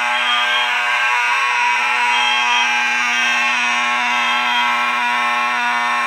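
CPG 4050D fire alarm horn sounding continuously in alarm: one steady, loud, raspy buzzing tone that never breaks.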